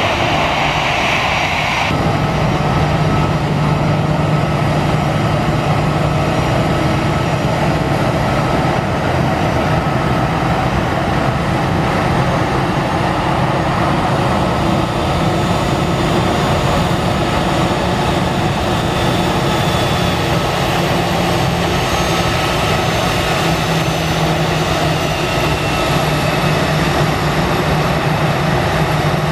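Airbus A320 airliner's jet engines running steadily at low power as it taxis, a constant noise with a thin high whine.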